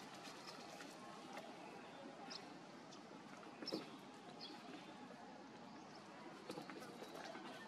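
Faint outdoor ambience with a few short, high chirps from small animals and one sharper tap a little after the middle.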